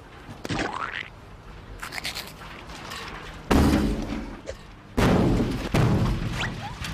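A 200-litre steel drum buckling inward with a series of loud, sudden metallic bangs, about three and a half seconds in and again around five and six seconds: the steam sealed inside is condensing in the ice water, and outside air pressure is crushing the drum.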